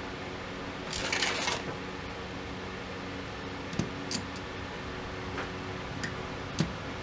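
Small metal ignition-lock parts handled on a workbench: a brief rustle about a second in, then a few light clicks, over a steady background hum.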